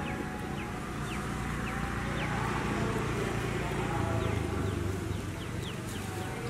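Outdoor background noise: a steady low rumble with a run of short, high chirps, each falling in pitch, coming every half second or so, more of them in the second half.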